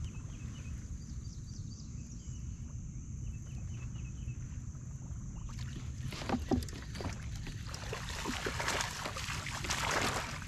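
Water splashing at the surface from about halfway through as a bass hooked on a buzzbait thrashes near the kayak. Before it there is only a low rumble and a few faint high chirps.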